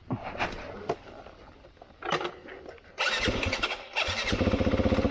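A few scattered knocks, then a Yamaha dirt bike's four-stroke single-cylinder engine starts about three seconds in, falters briefly, and settles into even, rhythmic running.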